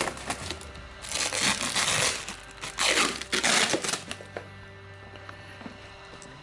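Packing paper being pulled off and crumpled in several rustling, tearing bursts during the first half, over steady background music.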